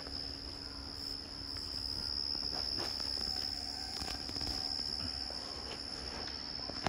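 A steady high-pitched whine over a low room hum, with a few faint rustles and ticks.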